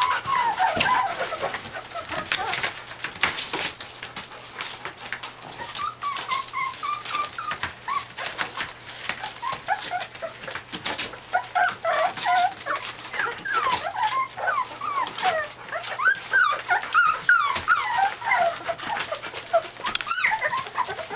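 A litter of young puppies squeaking and whimpering in many short high cries that slide up and down, more and more of them from partway through. Scratching and rustling throughout as they scramble over newspaper bedding.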